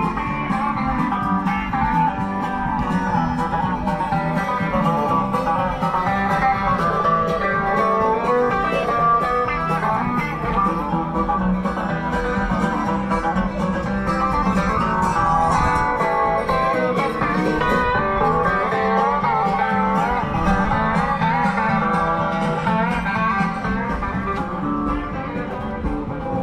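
Music led by guitar.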